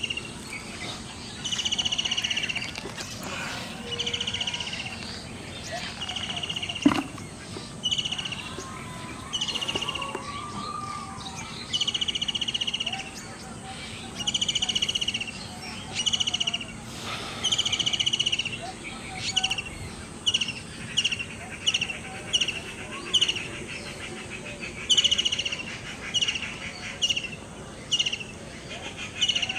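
A bird calls over and over with a short, buzzy chirp. The calls come about every second or two at first, then turn shorter and quicker in the second half. A single sharp click sounds about seven seconds in.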